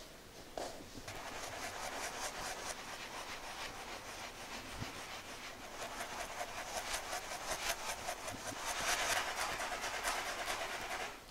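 A drawing tool scratching rapidly back and forth across textured canvas: a dense, rhythmic rasp of many strokes a second. It grows louder in the last few seconds and stops abruptly near the end.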